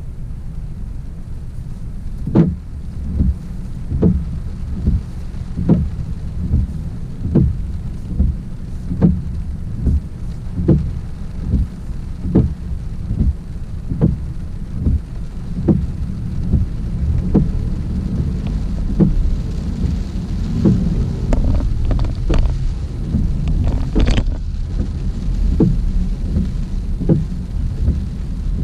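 Car interior while driving in heavy rain: a steady low rumble of road and rain, with a regular knock about every 0.8 seconds, as of windscreen wipers sweeping at fast speed. A sharper hit stands out near the end.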